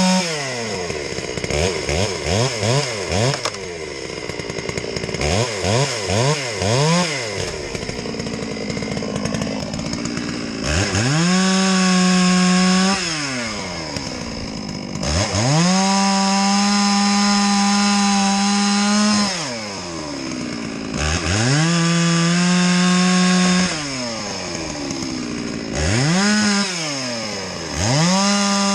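Farmertec MS660 two-stroke chainsaw cutting up branches: a few quick throttle blips, then five long full-throttle cuts of a few seconds each, the engine rising to a steady high pitch during each cut and falling back to idle between.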